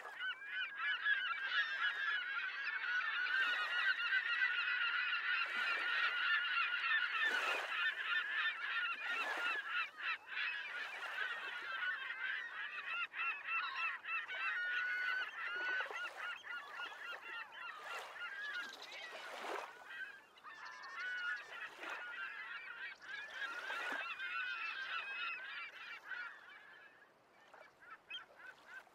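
A dense chorus of many birds calling at once, a flock crowded with overlapping short calls, thinning out and fading near the end.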